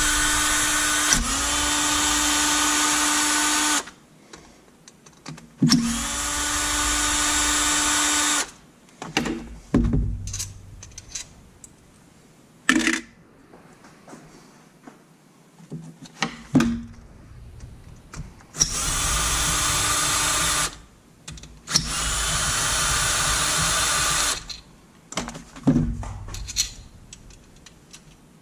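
A power driver spins out the bolts on a Yamaha YXZ1000 transmission case half. It runs at a steady pitch in about five bursts of a few seconds each, and the pitch climbs briefly as each burst starts. Short clicks and clinks of bolts and handling come between the bursts.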